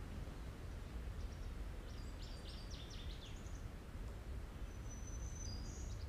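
Songbirds singing over a steady low background rumble: a quick run of high, downward-slurred notes about a second in, then a thin high whistle near the end.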